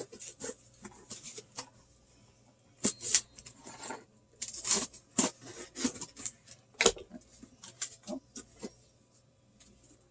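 Cardboard boxes and their packaging being opened by hand: irregular crinkling, rustling and scraping, with a sharp tap about seven seconds in.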